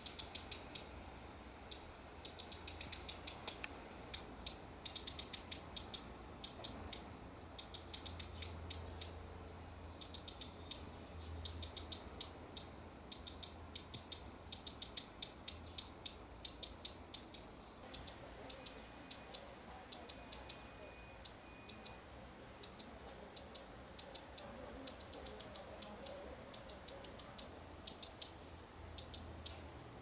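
Female common redstart giving sharp, high ticking calls in quick bursts of several ticks, again and again: the redstart's alarm call.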